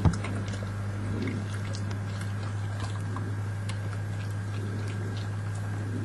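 Badgers chewing and crunching nuts: scattered sharp clicks and cracks over a steady low hum, with a single thump right at the start.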